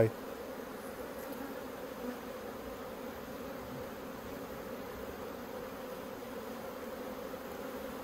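Steady hum of a honey bee colony buzzing over its open hive, a strong, populous colony with plenty of bees on the frames.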